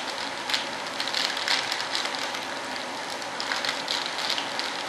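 Plastic vacuum-bagging film crinkling and crackling in many small irregular bursts as hands press and smooth it down over composite molds, over a steady hiss.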